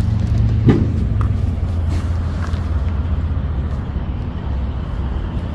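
Diesel semi-truck engine running with a steady low rumble, with a short clunk about a second in.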